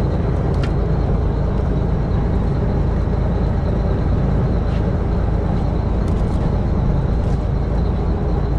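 Fishing boat's engine running steadily, a loud low rumble, with a few faint clicks over it.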